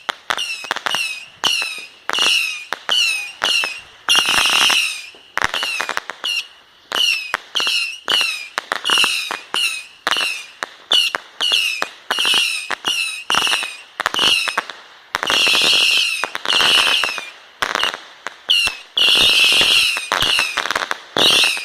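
Multi-shot aerial firework finale firing a rapid run of shots, about two a second, each with a short falling whistle, bunching into dense volleys a few times.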